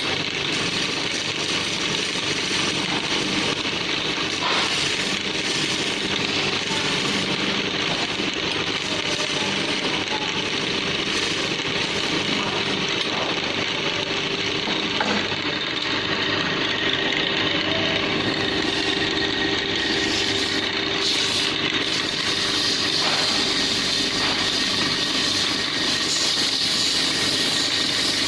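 Wood lathe running steadily with a constant hum, a turning tool cutting a wooden table leg with a continuous rasping hiss.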